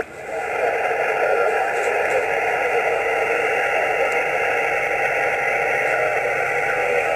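Static hiss of an open HF single-sideband channel from a Yaesu transceiver's speaker, band noise with no station transmitting. The hiss dips briefly at the start and swells back within half a second.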